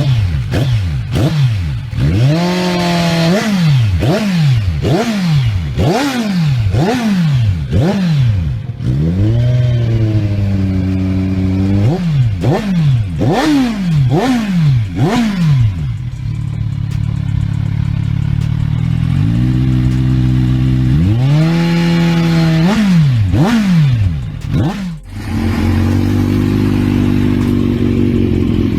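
Modified Kawasaki Z1000 inline-four with an aftermarket exhaust revved in quick throttle blips, roughly one a second, each note rising and falling. It then settles to a steady idle, with one more rev and a short break shortly before settling again.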